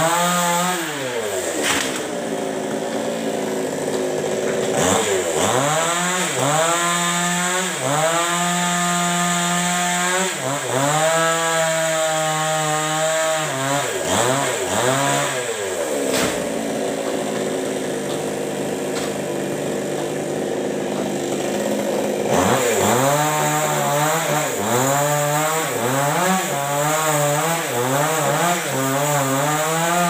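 Two-stroke chainsaw cutting tree limbs, its engine revving up and falling back again and again as the cuts go in. Past the middle it drops back to idle for several seconds, then revs in quick bursts near the end.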